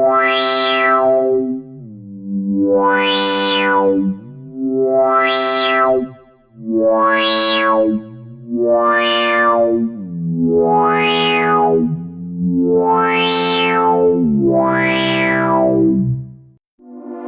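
GForce Oddity 2 software synthesizer, an ARP Odyssey emulation, playing a slow line of about eight sustained notes, roughly one every two seconds. Each note swells bright as the filter opens and then closes again, and the pitch glides from one note to the next.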